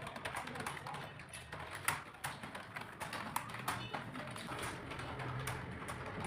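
Computer keyboard being typed on during a typing test, an irregular stream of key clicks.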